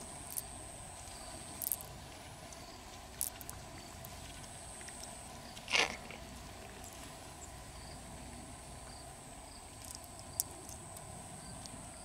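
Small wet squelches and clicks as pearls are picked by hand from the flesh of an opened freshwater pearl mussel, a handful of short sounds spread out, the loudest about halfway through. A thin, steady high whine runs underneath.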